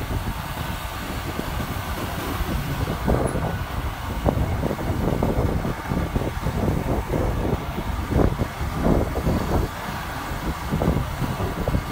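Ride on a moving motorcycle: engine running and road noise, with wind rumbling unevenly on the microphone.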